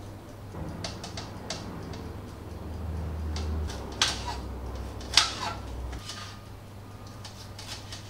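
Kitchen knife slicing a yellow bell pepper on a cutting board: a run of short sharp cuts, with two louder knocks of the blade against the board about four and five seconds in.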